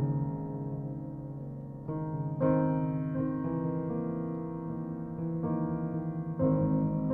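Background piano music: slow sustained chords, a new chord struck every couple of seconds.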